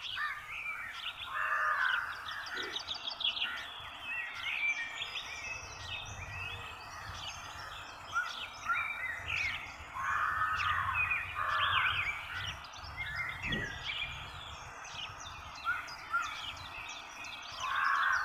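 Many small birds chirping and twittering together, with a few harsher caws, crow-like, about a second and a half in, around ten to eleven seconds in, and near the end, over a low steady rumble.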